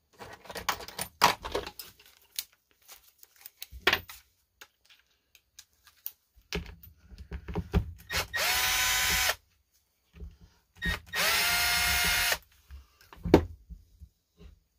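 Cordless Milwaukee power driver running twice in short steady bursts of about a second, backing screws out of a chainsaw crankcase, with metal tools clicking and rattling on the bench before.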